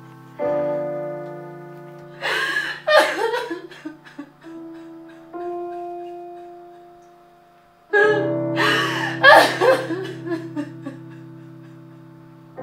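Slow piano score: a sustained chord struck about half a second in and another near eight seconds, each slowly dying away. Over it a woman sobs and wails in grief, loudest a few seconds in and again just after the second chord.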